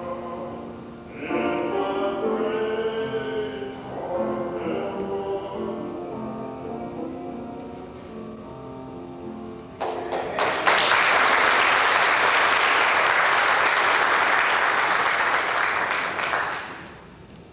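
Singing, then about ten seconds in the congregation breaks into applause. The clapping is loud and steady for around six seconds, then dies away near the end.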